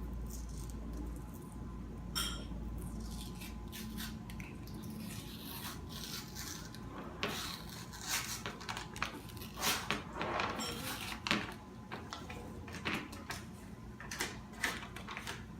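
Handling and peeling a Pillsbury croissant dough can, with rubbing, rustling and scattered clicks and taps. The can has not yet popped open.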